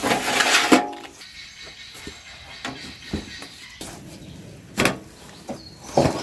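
Metal gazebo beam parts being handled and fitted together: a rough scraping sound in the first second, then scattered knocks and clanks, with a sharper knock about five seconds in and another near the end.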